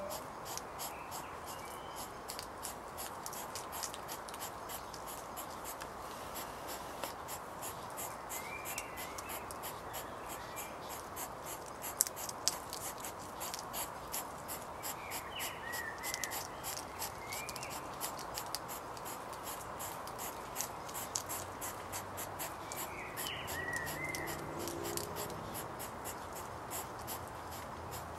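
European hedgehogs snuffling and chewing as they forage on gravel: a rapid run of small wet clicks and smacks over a low outdoor hiss. A bird gives short chirping calls about three times.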